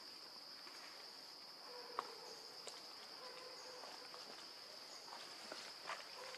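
Insects droning steadily in one continuous high-pitched band, with a few faint clicks and rustles over it and one sharper click about two seconds in.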